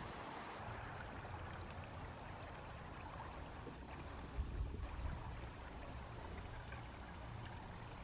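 Faint, steady rushing outdoor background noise with a low rumble underneath.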